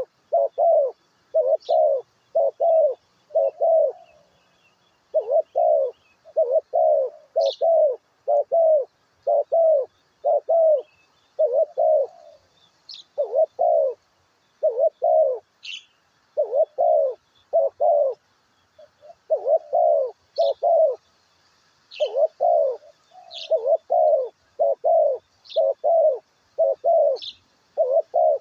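A dove cooing over and over in short rounded notes, grouped in twos and threes with brief pauses between the groups. A small bird gives short high chirps now and then in the background.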